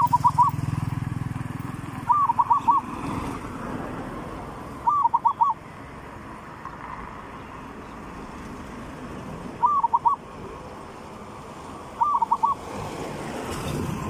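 Zebra dove cooing in five short phrases a few seconds apart, each a quick run of about four bending notes, over a low background rumble that is strongest at the start.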